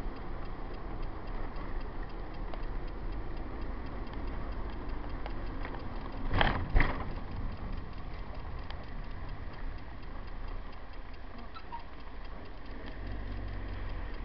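Hymer's engine and road rumble heard from inside the cab as it slows and idles at a toll booth, with a light ticking over it. A loud double knock comes about six and a half seconds in.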